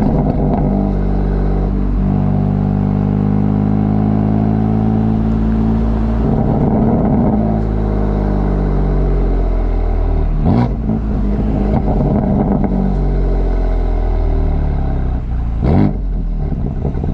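BMW F82 M4's twin-turbo 3.0-litre inline-six, heard through a microphone at the exhaust while driving, its note rising and falling with the revs. Two sharp cracks stand out, one about ten seconds in and one near the end.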